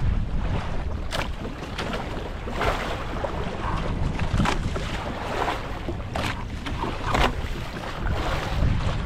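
Waves slapping against the hull of a small fishing boat on a choppy sea, a splash every second or two over a steady low rumble.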